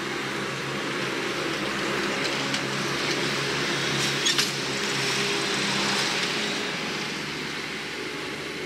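A vehicle's motor running steadily under a rushing noise that swells and then fades, with a couple of short clicks a little past the middle.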